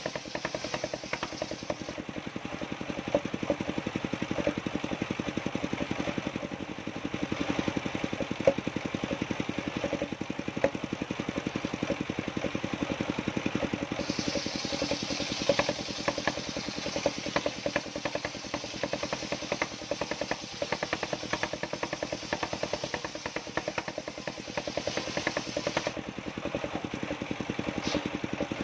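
An engine running steadily, with a fast, even pulsing throughout.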